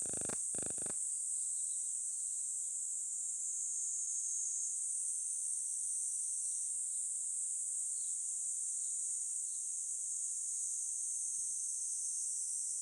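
Outdoor insect chorus, a steady high-pitched trilling that doesn't let up. Two short dull bumps come right at the start.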